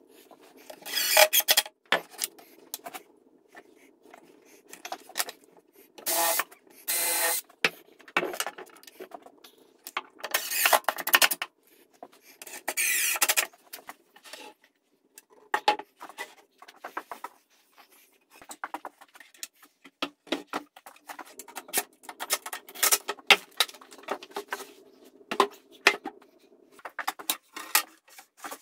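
Furniture being assembled at a workbench: several short bursts of a cordless driver running screws in, among knocks and clatter of boards and tools.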